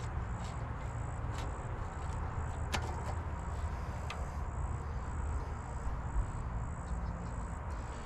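Insects chirping in a steady high pulse, about two a second, over a low steady rumble, with a couple of faint sharp clicks a few seconds in.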